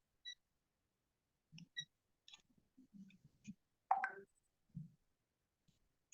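Faint scattered clicks and short soft knocks in a quiet room, heard over a video call, with one slightly louder brief sound about four seconds in.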